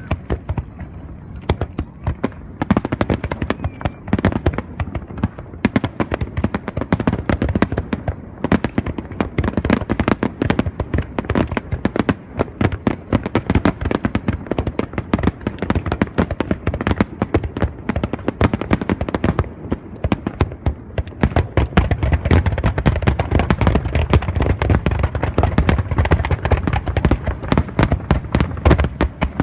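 Aerial fireworks bursting in a dense, rapid barrage of bangs and crackles, growing louder with deeper booms about two-thirds of the way through.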